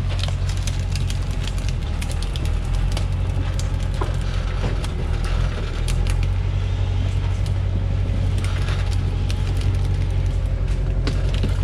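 Cargo truck's engine idling steadily while acacia logs knock and clatter as they are thrown up and stacked on its bed.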